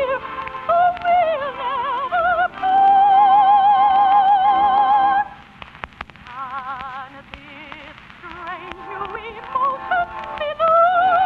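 Orchestral operetta music: a high note held with strong vibrato for about two and a half seconds, then a quieter, softer passage that swells again near the end.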